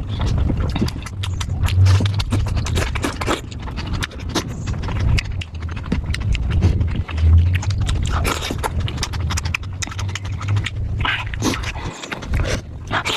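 Close-miked eating sounds: a person chewing and smacking on momos in spicy gravy, with many short wet clicks and smacks.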